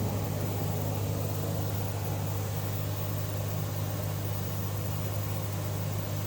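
Steady, unchanging low mechanical hum of a running motor.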